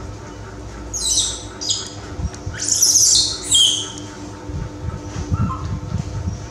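Baby macaque crying: about four shrill, high-pitched squealing cries, each falling in pitch, the longest and loudest about three seconds in. The cries are those of a frightened infant.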